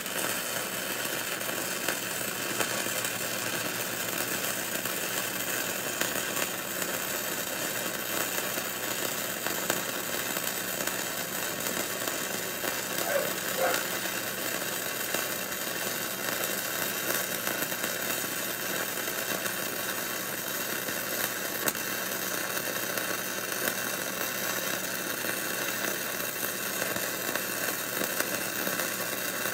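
Flux-core arc welding with a Hobart 140 wire-feed welder running .035-inch flux-core wire. The arc sizzles steadily without a break through one long bead.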